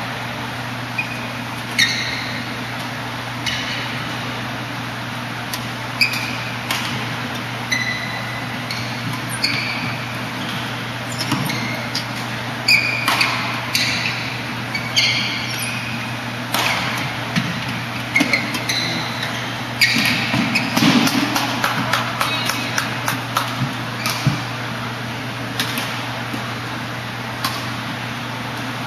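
Badminton rally: sharp racket-on-shuttlecock hits and short squeaks of shoes on the court mat, with the hits coming thickest about two-thirds of the way in, over a steady low hum.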